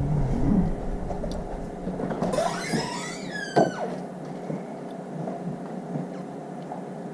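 Battery-powered auto-pulse spot welder firing onto battery cells: sharp snaps a few seconds apart, the loudest about halfway through. A brief warbling squeak, rising and falling in pitch, comes just before that snap.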